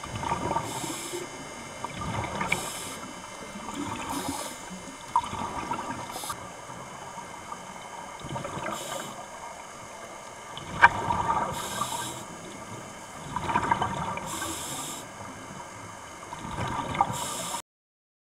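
Diver breathing through a scuba regulator underwater: bursts of bubbles and hiss come every two seconds or so. The sound cuts off suddenly near the end.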